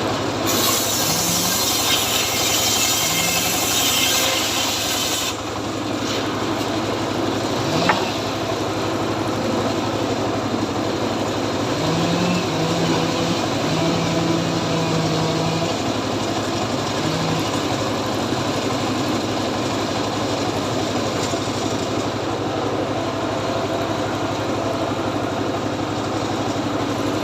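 Two-stroke chainsaw running, its chain cutting through wood with a harsh hiss for about the first five seconds, then running on steadily after the cut stops.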